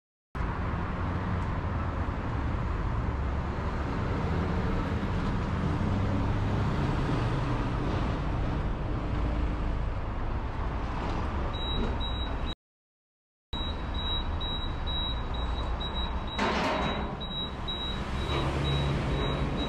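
Steady low rumble of a car at low speed or idle at a parking-garage roller-shutter entrance. From a little over halfway through, a run of short high beeps repeats, and a brief louder clatter comes a few seconds later.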